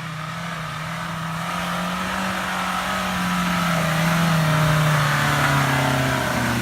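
Suzuki Sidekick's engine running, growing steadily louder, with its pitch easing down slightly near the end before the sound cuts off suddenly.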